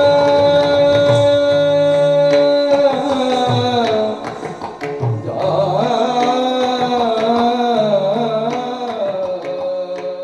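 Live Odissi dance music: a long held note, then from about three seconds in a winding, ornamented vocal line over hand-drum strokes, tapering off near the end.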